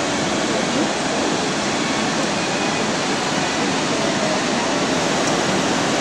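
Steady rush of a mountain waterfall, falling water loud and unbroken.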